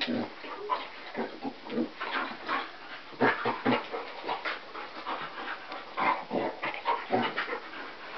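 A basset hound and another dog play-fighting: panting and short grunts in quick, irregular bursts.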